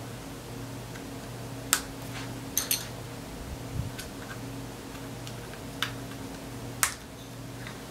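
HyPar plastic building-toy panels and connectors clicking as they are pushed and snapped together by hand: about six short, sharp clicks spread over several seconds, over a steady low hum.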